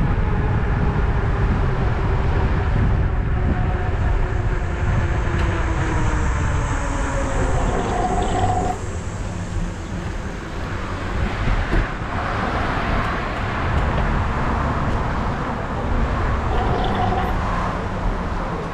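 Wind buffeting and tyre rumble on a GoPro mounted on a moving e-bike, a steady low rush. Faint whines slide down in pitch during the first few seconds, and two short high tones come about eight seconds apart.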